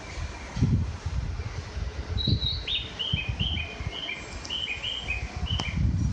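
A quick series of about fifteen bird-like chirps, starting about two seconds in and alternating between a higher and a lower note, over a low, uneven rumble.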